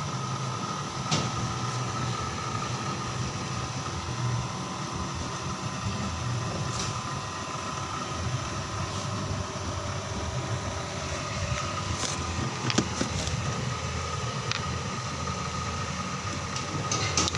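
Steady mechanical running hum with a constant whine, broken by a few sharp clicks and taps.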